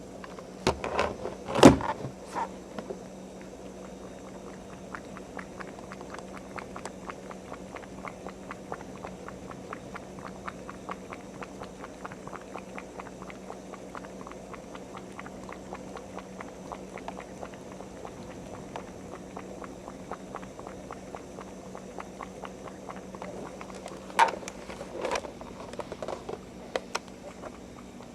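A cat eating lobster, its mouth making small clicks about three times a second, with a few louder knocks near the start and again near the end, over a low steady hum.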